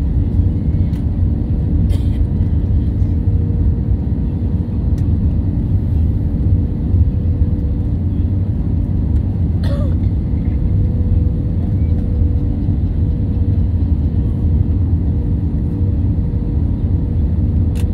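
Steady low rumble of an Airbus A320-family cabin beside the wing, with the airliner on approach and its flaps extended, and a steady hum over it. Two brief faint clicks, about two seconds and ten seconds in.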